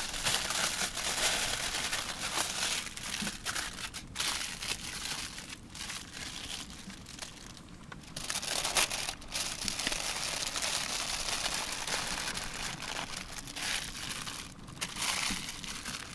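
Aluminium foil crinkling and crumpling in irregular rustles as ears of corn are wrapped in it by hand, with a quieter stretch about halfway through.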